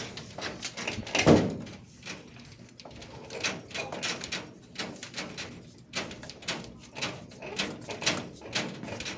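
Screen door frame and hardware being worked on by hand: a heavier thump about a second in, then a run of short clicks and knocks, about two or three a second.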